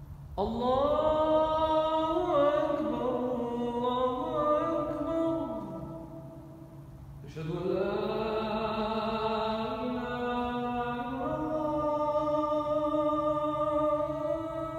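A man's solo voice reciting the adhan, the Islamic call to prayer, in the Makkah style. It comes in two long, drawn-out melodic phrases, the second starting about seven seconds in.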